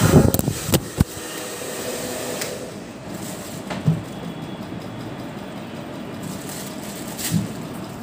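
Handheld hair dryer blowing steadily on its second speed. In the first second, a rapid clatter of knocks as the phone recording it topples over, knocked down by the dryer's airflow.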